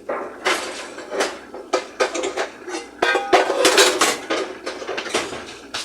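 Pots and pans clattering as a pan is got out and handled: a run of metal knocks and clanks, busiest about three to four and a half seconds in.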